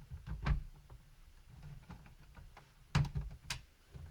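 Plastic laptop case parts being handled: a few knocks and sharp clicks about half a second in and again around three seconds in, over low rumble from handling.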